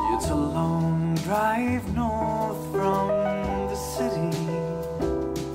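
A song with piano and a sung melody played back through a pair of Yamaha HS7 two-way studio monitors with 6.5-inch woofers, picked up by a microphone in the room.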